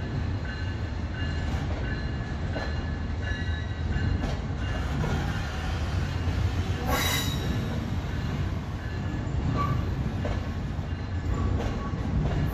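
Amtrak Pacific Surfliner bi-level passenger cars rolling slowly past as the train pulls out, a steady low rumble with faint high wheel squeal. There is one sharp knock about seven seconds in.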